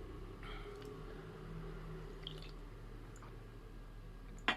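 Faint sips of coffee from a cup, with a sharp click near the end.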